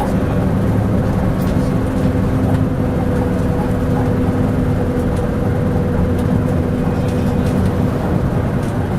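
Leyland Atlantean double-decker bus's Leyland O.680 diesel engine running steadily under way, with a constant low drone and a few light clanks and knocks from the bus.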